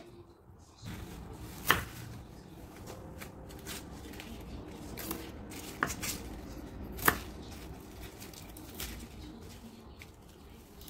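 Kitchen knife chopping leafy green vegetable stalks on a wooden cutting board: a few sharp knocks of the blade striking the board. The loudest knocks come a little under two seconds in and about seven seconds in, with quieter cuts between.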